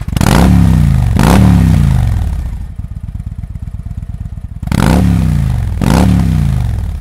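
Victory motorcycle V-twin running through an aftermarket exhaust, blipped four times in two pairs. After each blip the revs fall back to an even, pulsing idle.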